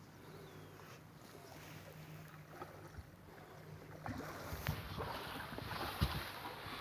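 Steady low hum of a ship's engine aboard a vessel at sea. Rougher noise builds in the second half, with a couple of sharp knocks.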